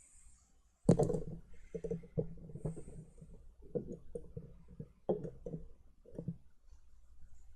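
Irregular clicks and knocks from things being handled on a work surface, with a sharp knock about a second in and a scatter of lighter taps after it.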